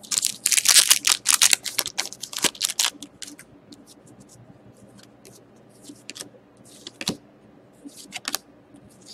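A trading-card pack wrapper being torn open and crinkled: a dense run of crackly rustling for about the first three seconds, then only scattered light rustles and clicks as the cards are handled.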